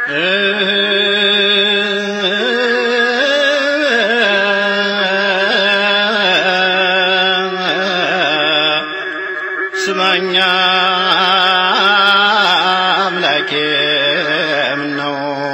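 A male voice sings an Ethiopian Orthodox zelesegna mezmur (hymn) in slow, drawn-out melismatic phrases, holding notes with a wavering, ornamented pitch.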